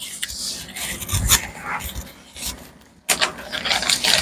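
Tape being pulled off the roll, torn and rubbed down onto wood: a run of rough rasping pulls, with a short pause about three seconds in before louder pulls resume.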